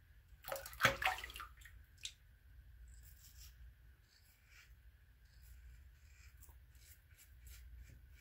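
Water splashing as a safety razor is rinsed in the sink, loudest about a second in. Then the faint, scratchy rasp of a King C Gillette double-edge safety razor shaving lathered stubble around the lip in short strokes.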